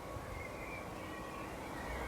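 Birds chirping: a few short, faint chirps over steady background noise.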